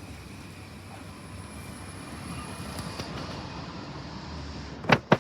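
Electric train running with a low, steady rumble; near the end, two sharp knocks about a quarter of a second apart.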